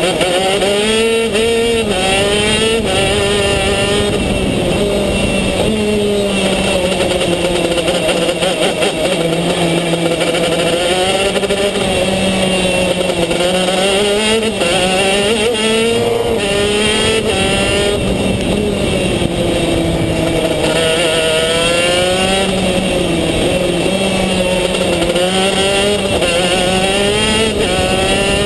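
Racing kart's two-stroke engine heard onboard at racing speed, revving up in pitch along the straights and dropping away under braking for the corners, several times over.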